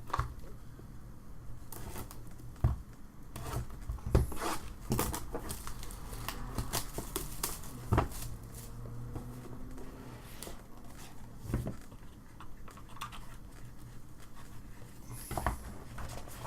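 Trading-card box and pack wrappers being opened and handled: crinkling and tearing of wrapper, with scattered clicks and taps.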